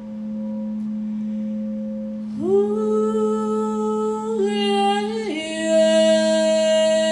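A frosted quartz crystal singing bowl, played with a mallet, rings with one steady low tone. About two and a half seconds in, a woman's voice joins, singing long wordless held notes that step lower in pitch near the middle.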